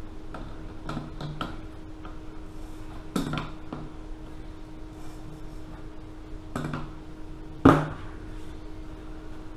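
Adjustable wrench clinking and knocking against the brass fitting of a vintage gasoline blowtorch as a screw is worked in, a few light clicks then heavier knocks. The loudest, a metal clank with a short ring, comes near the end as the wrench is put down on the bench.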